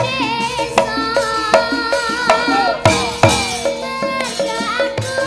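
A girl sinden singing into a microphone with a wavering, ornamented voice, over a Javanese gamelan ensemble: ringing metallophone tones and sharp, frequent drum strokes.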